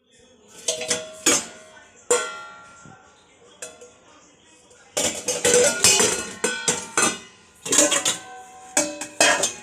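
Dishes and cutlery being handled, clinking against each other in irregular groups of knocks that ring on briefly, busiest a little past halfway.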